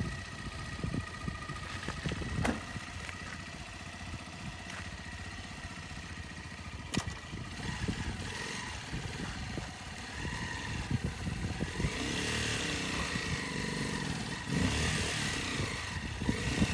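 Small dual-sport motorcycle engine running steadily, its revs rising a few times in the second half.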